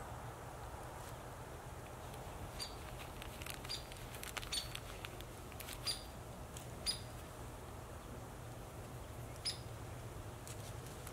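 Hand-forged steel fire striker struck against flint to throw sparks: a handful of sharp, irregular clicks, several with a short high metallic ring.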